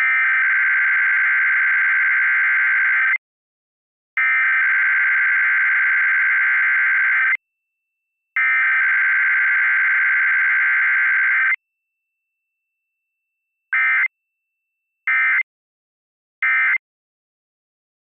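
Emergency Alert System Required Weekly Test data tones. The SAME header's buzzing digital data bursts three times, each burst about three seconds long with a second's gap between. About two seconds after the third, three short end-of-message bursts follow.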